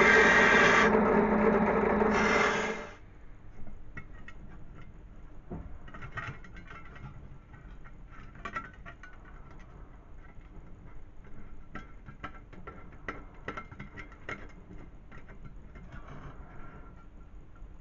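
A drill press with a sanding drum runs against the edge of a stainless steel utensil holder, then cuts off sharply about three seconds in. After that come small metallic clicks and scrapes as bolts are fitted through the holes of the thin steel cylinder by hand.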